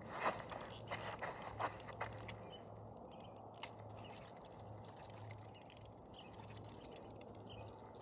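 Spinning fishing reel being cranked, a quick run of small irregular clicks over the first two seconds or so, then only a faint steady outdoor hiss.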